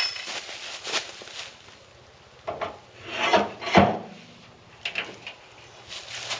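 Irregular scraping and rubbing strokes with a few sharp knocks, the loudest strokes about three to four seconds in.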